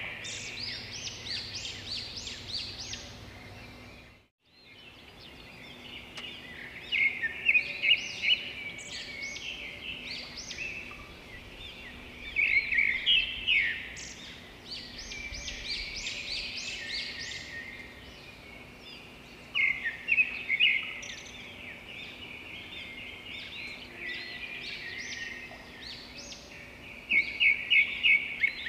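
Small birds chirping in quick, repeated bursts of high notes over a faint steady background hum. The sound cuts out completely for a moment about four seconds in.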